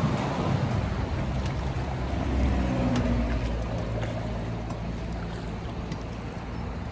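Fast, swollen river water rushing and churning around a drifting boat, with a low steady rumble; a low hum comes in about two seconds in and fades out by about five seconds.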